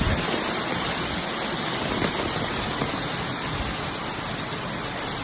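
Heavy hail coming down, a dense steady hiss of stones.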